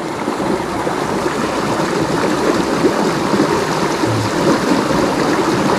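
Shallow rocky river flowing over stones: a steady, even water noise.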